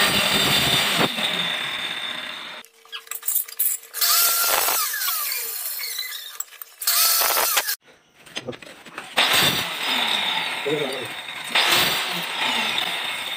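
Handheld electric marble cutter running with a high whine and cutting through marble tile, in several stretches broken by short pauses.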